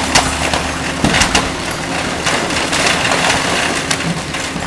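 Excavator tearing into a building's upper storey: irregular cracking and crunching of splintering wood and debris, over the steady hum of the machine's diesel engine.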